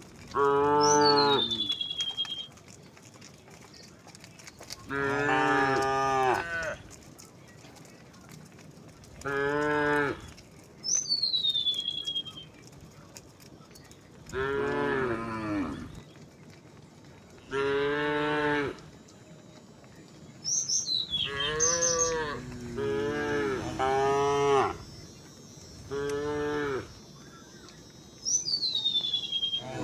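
Cattle mooing over and over as a herd walks: about ten long moos, one after another, in differing pitches. A short high whistle falling in pitch comes four times among them.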